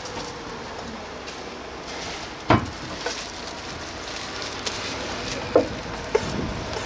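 Steady hiss of food cooking at a sundae stall, broken by three sharp utensil knocks that ring briefly; the loudest comes about two and a half seconds in, the other two near the end.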